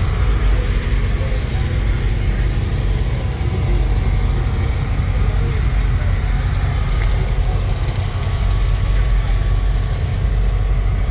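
A car's steady low rumble, with faint voices in the background.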